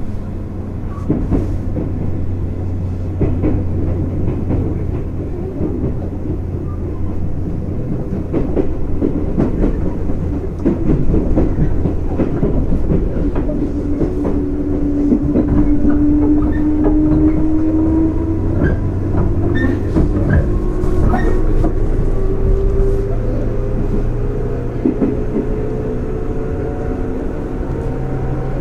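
205 series electric train running on the rails, with wheels clicking over rail joints. From about halfway a whine from the traction motors and gears rises steadily in pitch as the train picks up speed.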